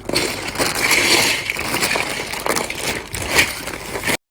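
Handling noise from a boxed plastic building-block set: a dense rattling, scraping clatter of many small pieces, cutting off abruptly near the end.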